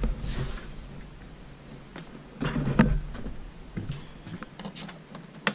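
Scattered rustling and knocking from someone moving through a doorway with a camera and a doorbell button in hand, with a single sharp click near the end.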